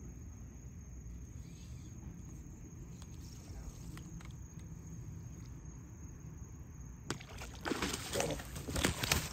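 Quiet night ambience with a steady high insect tone and a low distant rumble. About seven seconds in, a sudden loud burst of thrashing and splashing as a snakehead strikes the topwater frog lure.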